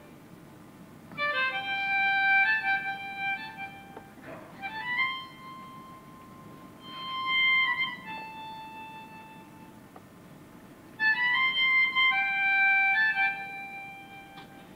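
Melodica playing a slow melody of long held notes in three phrases, with short pauses between them.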